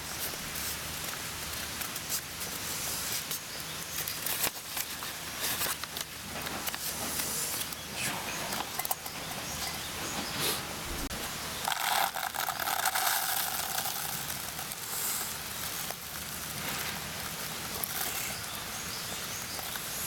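Paper coffee filter rustling as it is folded and fitted into a small drip cone, with scattered light clicks and the crackle of a small wood fire in the camp stove.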